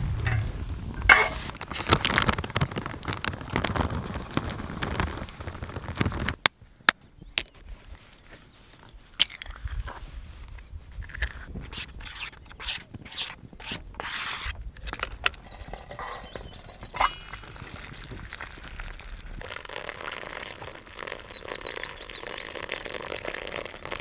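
Camp cooking on a small wood-burning stove with metal cookware: a string of sharp clicks and clinks as pots and pans are handled, with crackling. A rumbling stretch at first cuts off suddenly about six seconds in, and a steady hiss fills the last few seconds.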